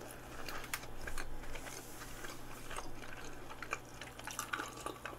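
Faint close-miked chewing of a breaded, deep-fried croquette: many small wet mouth clicks and smacks. About four seconds in comes a sip from a glass of iced cola.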